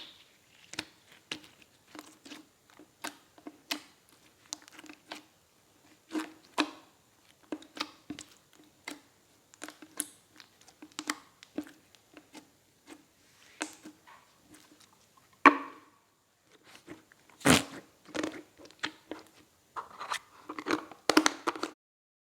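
Slime being worked by hand, giving irregular sharp pops and clicks about one or two a second, with two louder pops past the middle and a quick run of them near the end before it stops.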